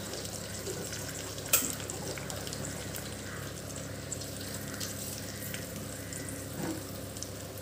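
Thick coconut-milk fish curry in a banana-leaf-lined pan, giving a steady soft sizzle, with one sharp click about one and a half seconds in.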